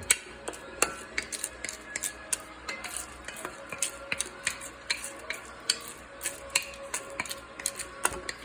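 Wooden spoon stirring raw popcorn kernels coated in olive oil and hot sauce, with irregular clicks and scrapes as the hard kernels knock against each other and the container, a few times a second.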